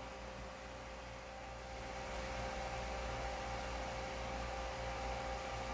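Steady hum with a faint hiss: the thermoelectric generator's 5-inch muffin fan running, with the gas burner heating the unit underneath.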